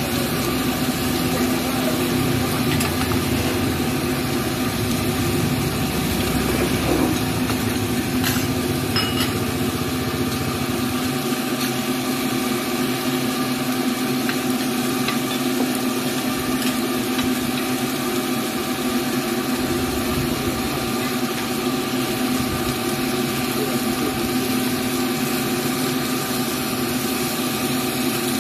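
Fish, eggs and minced meat sizzling on a large flat griddle, with a metal spatula scraping and tapping as the food is turned. A steady mechanical hum runs underneath, and a deeper rumble drops away about eleven seconds in.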